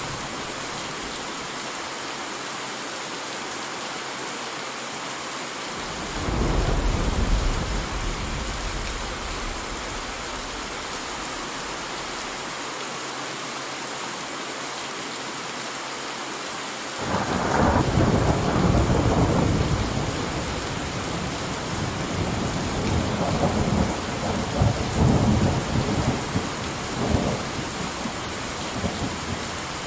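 Steady rain with rolls of thunder: a short rumble about six seconds in, then a louder one that breaks suddenly around the middle and keeps rumbling in surges until near the end.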